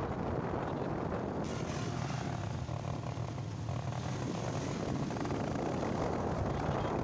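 Motorcycle engine running steadily under way, a low drone with road noise.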